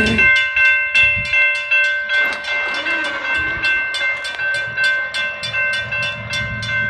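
Railroad grade-crossing warning bell ringing in rapid, even strokes, about two and a half a second, as the crossing signals flash. A low rumble from the approaching train's locomotive comes in under it near the end.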